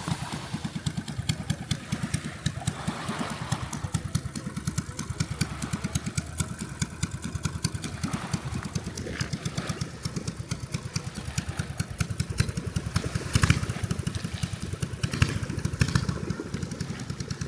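An unmuffled engine running steadily, with a rapid, even chugging of firing pulses, a little louder for a moment about two-thirds of the way in.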